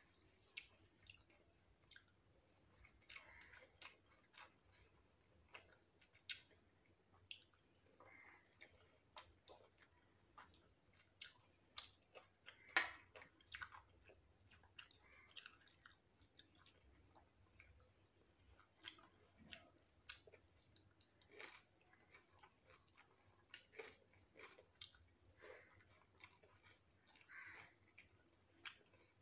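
Faint, close-up chewing and eating sounds of rice with green chillies: irregular soft mouth smacks and small clicks, one sharper click about halfway through.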